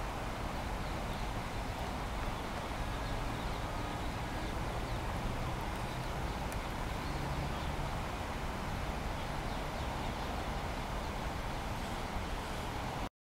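Steady outdoor background noise: an even hiss over a low rumble, with no distinct call or footstep standing out. It cuts to silence abruptly just before the end.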